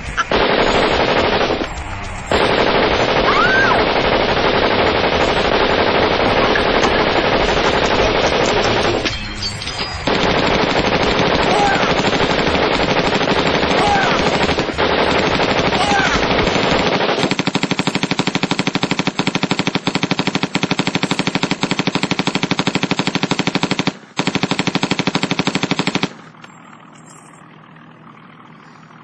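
Long bursts of automatic rifle fire. In the later part it becomes a rapid, even stream of shots, then stops suddenly a few seconds before the end.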